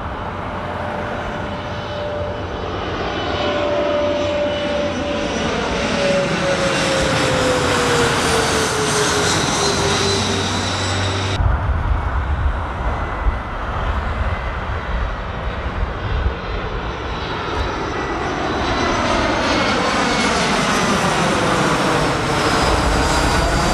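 Jet airliner engines on final approach, a steady roar. In the first half a whine glides slowly down in pitch as a jet passes. After a sudden cut, another jet's noise swells, its tone wavering up and down as it comes low overhead near the end.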